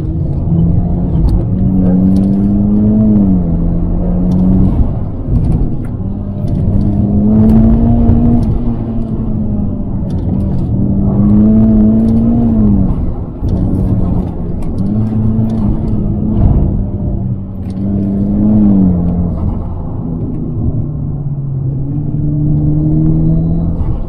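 Mitsubishi Lancer Evo X's turbocharged 2.0-litre four-cylinder engine heard from inside the cabin under hard driving. The revs climb and drop back again about half a dozen times.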